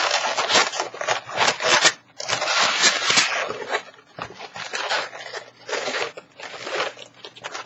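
Latex 260 modelling balloons rubbing against each other as they are twisted and tied together, in a series of bursts about a second long with short pauses between.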